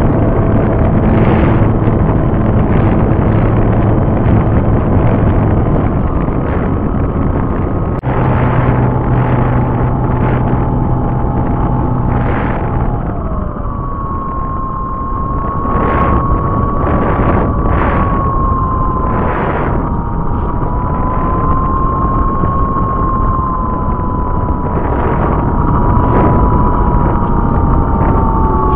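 Electric motor and propeller of an RC model plane, heard from a camera on board, under heavy wind rush on the microphone. The motor's whine shifts pitch about eight seconds in and again a few seconds later, then holds a steadier, higher tone with slight wavering.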